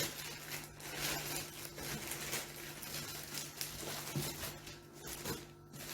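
Packaging being handled and opened by hand: a run of short, irregular rustling and scratching noises.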